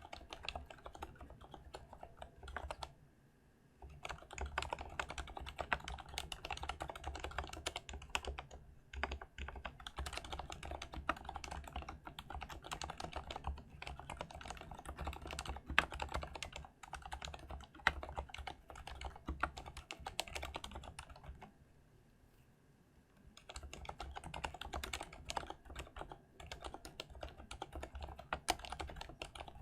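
Typing on an Mstone Groove T SF mechanical keyboard with Cherry MX Silent Red switches: a fast, continuous run of keystrokes that pauses briefly twice, about three seconds in and about twenty-two seconds in.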